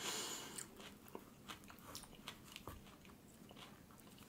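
Close-miked chewing of flatbread with hummus: faint wet mouth clicks scattered throughout, after a short hissy burst right at the start.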